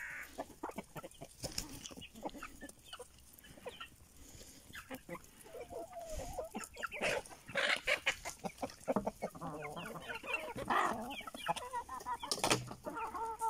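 Flock of hens and roosters clucking as they forage, over a run of short taps and rustles from scratching and pecking in dry leaves and straw. The calls grow busier near the end.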